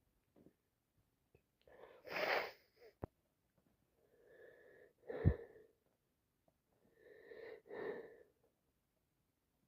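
A woman sniffing and sneezing in a bout she can't stop: a sniff about two seconds in, then breathy in-breaths with a faint whistle building to a short sneeze about five seconds in, and two more catching in-breaths near the end.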